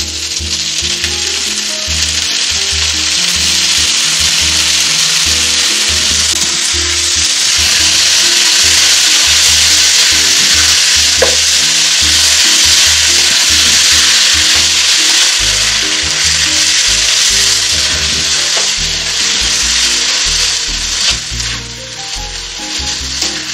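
Cooked beef tripe sizzling loudly as it fries in hot oil in a pan, stirred and turned with a spatula. The sizzle is strongest through the middle and eases a little toward the end.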